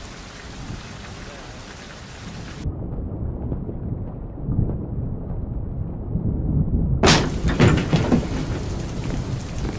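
Sound-effect rain and thunder: steady rain for the first few seconds, then the sound turns abruptly muffled to a low rumble. Near the end comes a loud cluster of sharp clunks and knocks, a heavy door being opened.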